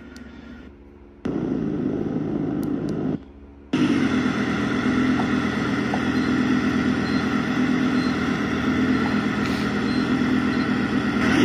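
Segway Ninebot GoKart Pro's sound speaker playing a simulated vehicle engine sound, one of its selectable sound modes. A steady engine hum starts about a second in, cuts out briefly near three seconds, then comes back louder and steady.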